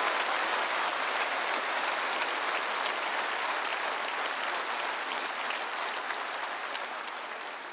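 Large audience applauding, a dense steady clapping that slowly dies down toward the end.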